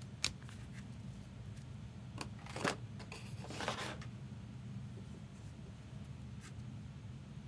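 Trading cards being handled: a few light clicks as the glossy cards tap together, with a brief rustle of cards sliding against each other about three seconds in, over a low steady hum.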